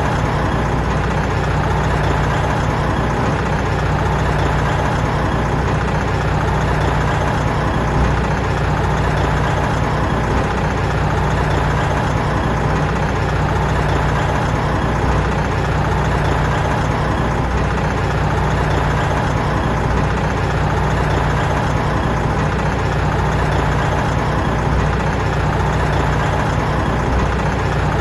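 Big truck diesel engine running steadily at one speed, with no revving or change in pitch.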